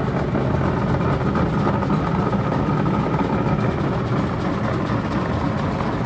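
Steady running noise of heavy shop machinery: an even, unbroken low rumble and hum.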